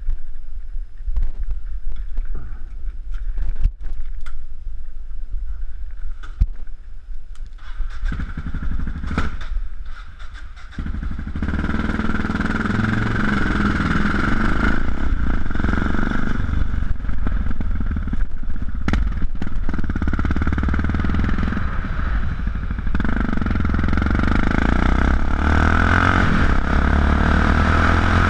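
Yamaha XT660X's single-cylinder engine through Leo Vince exhausts: a low, steady idle with scattered knocks and clatter over the first several seconds. From about 11 seconds in it grows louder and runs on steadily as the bike pulls away and rides.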